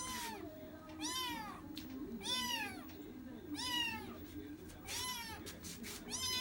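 Kitten meowing repeatedly: about six high-pitched meows roughly a second apart, each rising and then falling in pitch.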